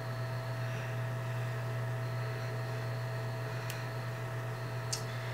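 Steady low electrical hum, with a fainter steady higher tone above it and two faint clicks, one near four seconds in and one near the end.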